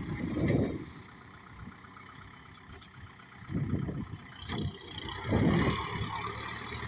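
Kubota tractor engine running while it pushes up rice-field soil, with loud low rumbles that swell and fade near the start and again from about halfway through.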